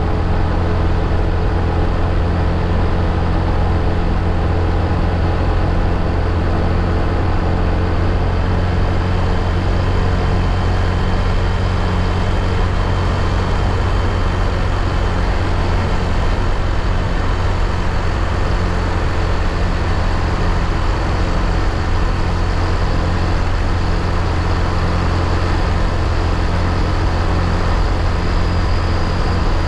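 Motor scooter cruising at a steady speed: the small engine running evenly under a constant rush of wind and road noise on the camera's microphone.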